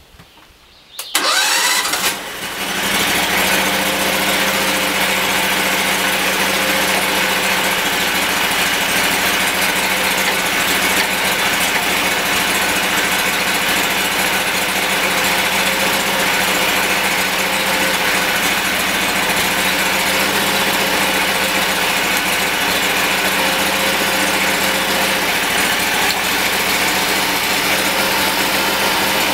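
The 22-horsepower V-twin engine of a homemade bandsaw sawmill starts about a second in, then runs steadily.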